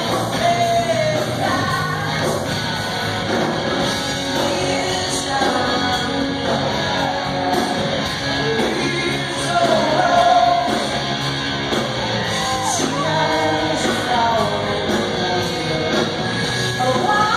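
Live rock band music with a woman singing, heard in a large, reverberant hall.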